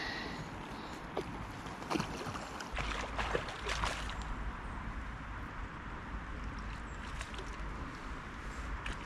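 River water rushing steadily, with a few short clicks and knocks between about one and four seconds in.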